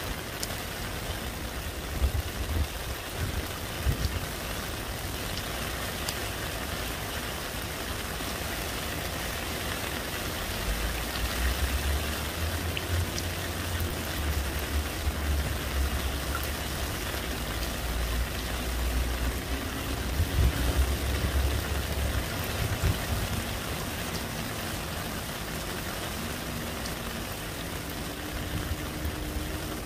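Heavy rain falling into a shallow puddle: a steady, dense patter of drops splashing on water. A low rumble rises under the rain about eleven seconds in and fades out about ten seconds later.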